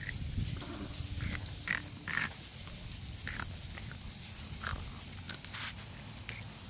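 Boston Terrier puppies sniffing and moving about in grass: a scattered run of short rustles and ticks.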